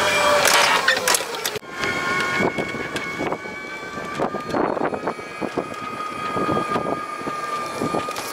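Golf cart driving along: a steady whine with frequent knocks and rattles from the cart. A louder rushing noise cuts off abruptly about a second and a half in.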